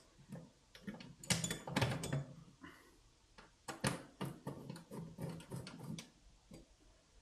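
Small bolts being screwed into a trolley's metal wrap bracket with an Allen key: irregular bunches of light clicks and taps as the key and bolts knock against the bracket.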